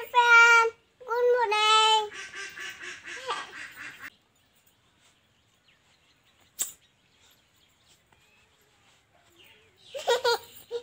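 A little girl's high voice giving two drawn-out calls, then a rapid chattering run that stops about four seconds in. After a few seconds of near quiet with a single click, short bursts of laughter start near the end.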